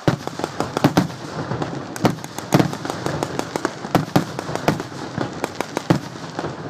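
Ground-launched fireworks firing in rapid succession: a dense, irregular crackle of pops with louder bangs about once a second.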